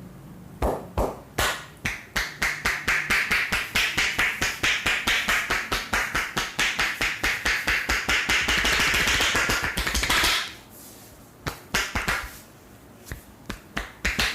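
Hands rapidly striking a person's head in an Indian head massage: a fast, even patter of about four slaps a second that quickens into a near-continuous drumming and stops suddenly. A few separate sharp slaps follow near the end.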